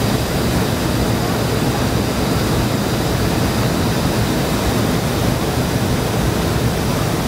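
Steady jet engine and airflow noise heard inside the cabin of a Boeing 717-200, from its two rear-mounted Rolls-Royce BR715 turbofans.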